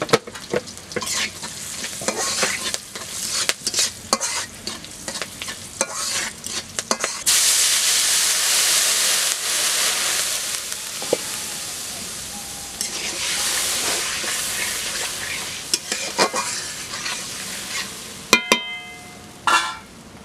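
Hot oil with green chillies frying in a metal kadai, with a spatula stirring and scraping. About seven seconds in a wet ingredient hits the oil and it bursts into a loud sizzle that slowly dies down. Near the end a couple of sharp metal knocks, one ringing briefly.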